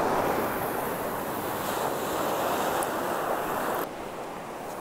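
Ocean surf washing and foaming right around the microphone, with wind on the mic, a steady rushing noise that drops suddenly to a quieter rush about four seconds in.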